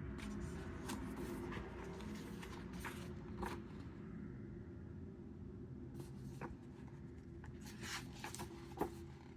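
Packaging and parts being handled during an unboxing: irregular rustling and scraping with scattered clicks, and one sharper click near the end, over a low steady hum.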